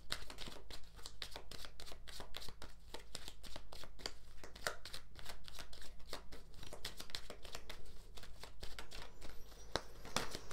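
A tarot deck being shuffled by hand: a steady run of quick card clicks and flicks, over a faint low electrical hum.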